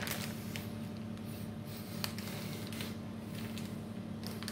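A crisp packet crinkling in a few brief, faint rustles as it is handled, over a steady low hum.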